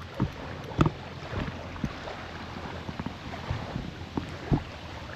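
Fishing rod and reel being handled while a carp is played: irregular soft knocks and bumps, several of them, over a steady hiss.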